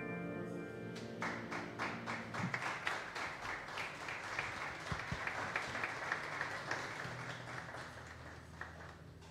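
A jazz band's final held chord, with trumpet, dies away in the first couple of seconds as a small audience applauds; the clapping thins out and fades toward the end.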